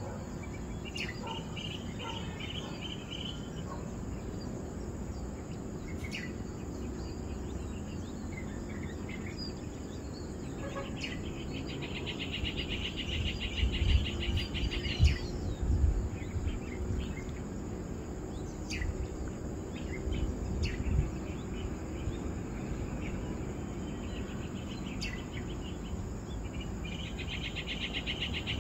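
Insects trilling in repeated bursts of a few seconds, a fast, even, buzzy pulsing, over a steady outdoor background hiss. Low rumbles come and go around the middle.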